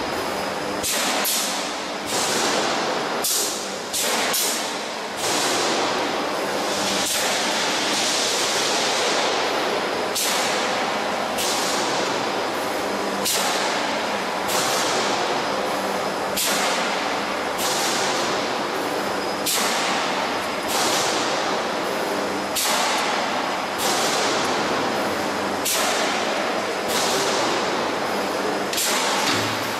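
Transformer radiator panel roll-forming line running: a steady machine hum with a sudden hissing burst about every one and a half seconds, each tailing off over about a second, as the line works through its repeating cycle.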